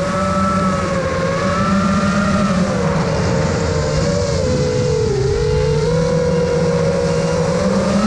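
FPV quadcopter's brushless motors and 6-inch propellers whining under a rushing noise, the pitch bending with throttle: it sags about five seconds in and climbs again near the end.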